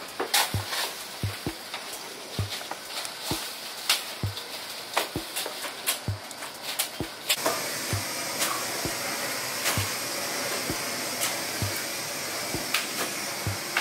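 Butcher's cleaver chopping through pork, sharp knocks with a low thud about once a second. About halfway through, a steady hiss starts up underneath.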